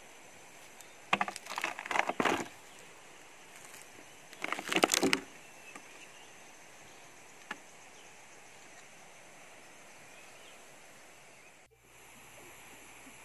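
Faint outdoor background hiss with two short bursts of crackling rustle, about a second in and again about four and a half seconds in, and a single tick a little later.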